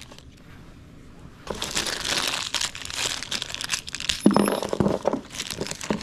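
Thin clear plastic bag crinkling and rustling as it is opened and the metal parts of a line tap valve are handled out of it, starting about a second and a half in.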